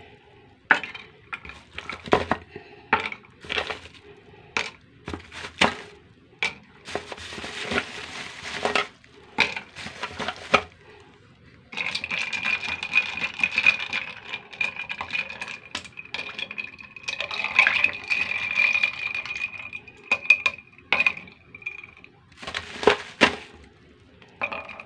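Ice cubes dropped into a glass mug of iced coffee, clinking and knocking against the glass many times, with a stretch of rattling ice. A steady high tone sounds through the middle of the stretch.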